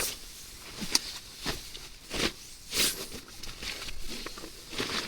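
Irregular rustling and shuffling of a plastic tarp and bedding being handled and moved about on a tent floor: short swishes every half second to a second, with a sharp click about a second in.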